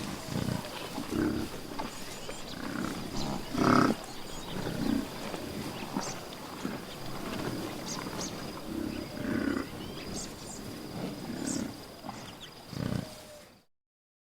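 A large animal's series of low, grunting calls at irregular intervals, over a thin steady high tone; the sound cuts off abruptly near the end.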